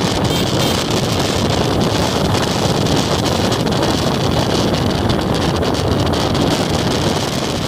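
Steady wind rush buffeting the microphone of a moving motorcycle, with the motorcycle's engine running underneath.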